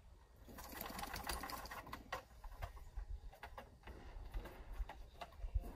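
English bulldog panting and snuffling close to the microphone, a fast run of noisy breaths, loudest in the first couple of seconds.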